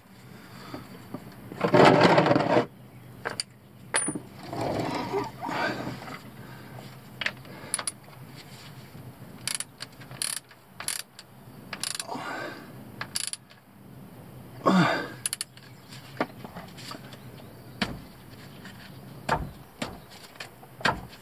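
Ratchet and metal hand tools clicking and clinking at the truck's front differential, with scattered sharp knocks and three louder scraping bursts of about half a second.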